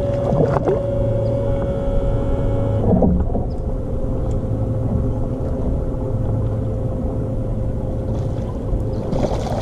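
A bass boat's motor running with a steady hum, its higher whine dropping away about three seconds in, with a couple of short knocks near the start and again about three seconds in.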